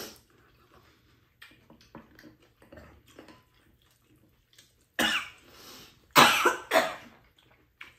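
A woman coughing hard at the table: one cough about five seconds in, then two more in quick succession a second later.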